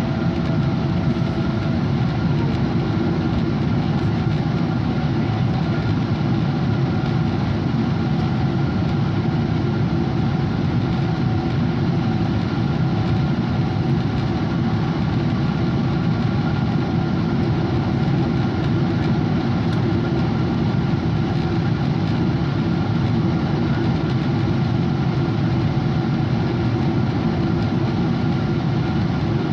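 Boeing 777-200 jet engines running at a steady, unchanging level, mixed with rushing air noise and a faint steady whine.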